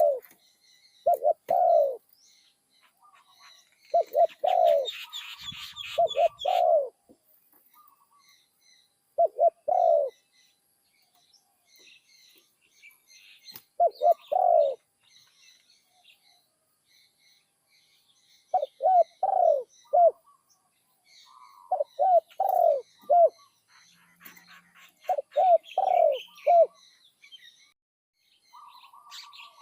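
Spotted dove cooing, repeating short phrases of two to four notes every few seconds, with other small birds chirping faintly in between.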